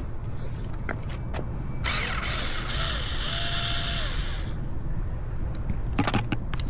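Tool working screws loose: a run of rapid ratcheting clicks lasting about two and a half seconds, with a faint whine that rises and falls, and a few separate clicks and knocks before and after.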